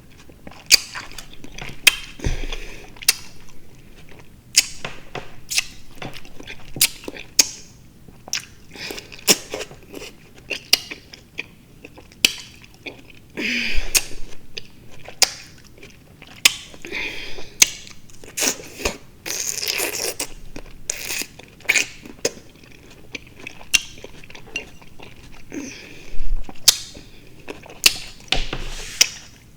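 A person chewing juicy fruit close to the microphone: irregular wet mouth clicks and smacks, with a few longer squelching chews.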